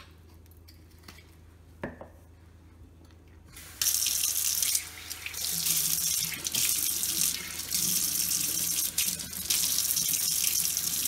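A couple of faint knocks, then a kitchen tap is turned on about four seconds in. Water runs steadily into the sink, splashing as hands and a bottle brush are rinsed under the stream.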